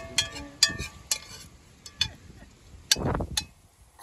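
Light clinking and knocking: a run of sharp, irregularly spaced ticks with a short ring, as of dishes or metal utensils being handled, and a short scraping rustle about three seconds in.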